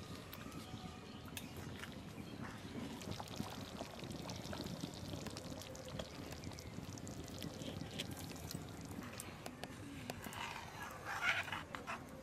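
Faint bubbling of a potato curry simmering in an iron karahi, with small clicks of metal from a ladle and the pan. A short, louder bird call about eleven seconds in.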